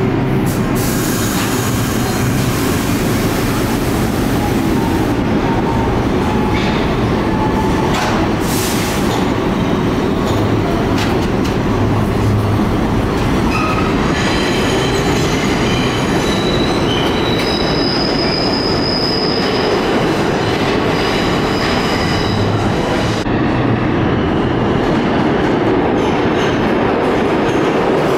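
Subway train running through the station on steel wheels, a steady loud rumble, with thin high-pitched wheel squeal on the curved track coming and going through the middle and later part.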